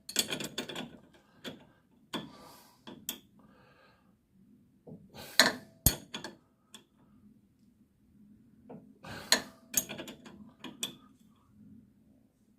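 Hand tools working on a Land Rover 110's steering damper fixings: irregular metallic clinks and clanks of spanners and sockets on the bolts, in a few short flurries with pauses between.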